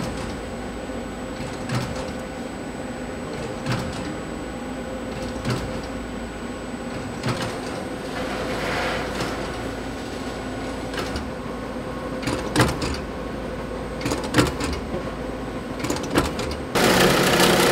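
Large food-processing machine running with a steady hum and scattered clicks and knocks, with a brief hiss partway through. Near the end it gives way abruptly to a louder, denser machine din.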